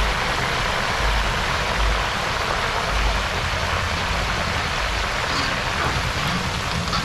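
Chips deep-frying in a pan of hot oil: a steady sizzle with a low rumble underneath.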